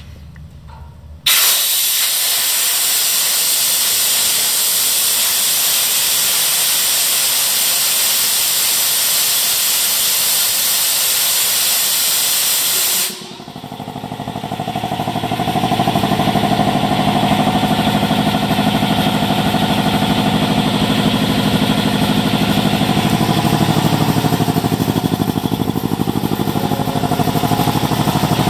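Compressed air hissing loudly out of an opened valve at the bottom of the 80-gallon tank of a Speedaire 1WD71 10 HP two-stage air compressor, bleeding the tank down. The hiss cuts off suddenly about 13 seconds in. The compressor then kicks on, comes up to speed over a couple of seconds and runs steadily with a fast, even pulse: the belt-driven two-stage pump cycling back on as tank pressure drops.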